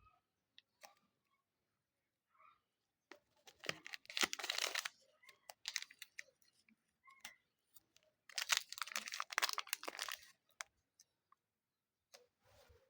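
Super light clay being squeezed and pulled apart by hand close to the microphone: two stretches of dense handling noise, each about a second and a half long, beginning about three and a half and eight seconds in, with scattered small clicks between.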